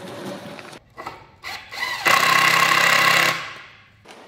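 A power tool runs for a little over a second in the middle, starting and stopping abruptly, after a few short knocks.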